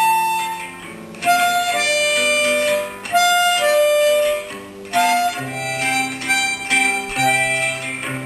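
Instrumental music: a lead instrument plays a simple melody in held notes over a plucked-string accompaniment, with a low bass line coming in about five seconds in.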